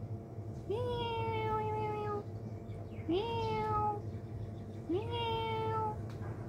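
A cat meowing three times, each meow sliding quickly up in pitch and then holding, slowly sagging; the first meow is the longest, about a second and a half.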